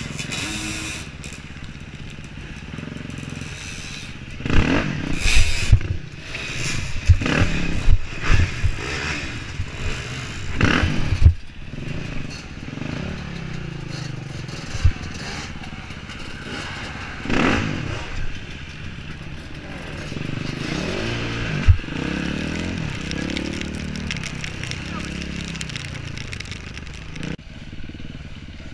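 Off-road motorcycle engine revving up and down as the bike climbs over logs, with loud knocks and clatter from the bike striking the logs, heaviest from about four to twelve seconds in.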